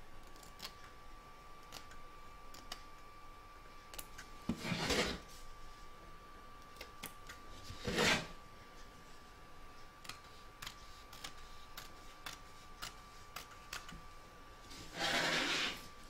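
Small embroidery scissors snipping away excess appliqué fabric close to the stitching: a scatter of light clicks. Three louder rustles of the fabric being handled come about four seconds in, at eight seconds and near the end.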